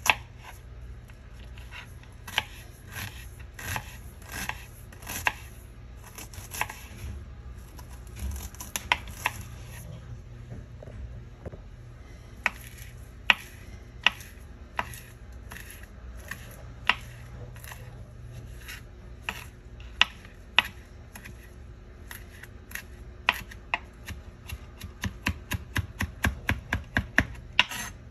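Kitchen knife chopping onion and then cilantro on a plastic cutting board: scattered strikes and slicing strokes at first, then a quick even run of about four chops a second near the end.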